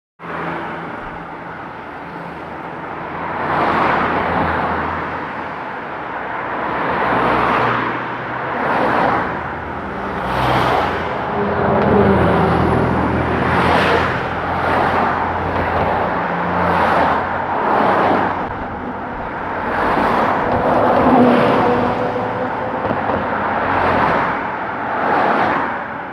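City street traffic: cars passing one after another, each one swelling and fading, about one every second or two, over a steady low engine hum.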